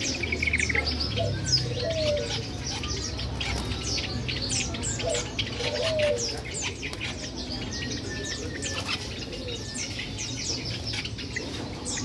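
Several caged songbirds chirping in a dense run of short, high calls, with some wing fluttering and a few lower sliding notes mixed in.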